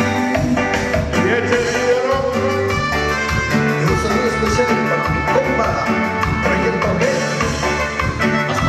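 Loud Latin dance music with a steady beat, played by a sonido (dance sound system).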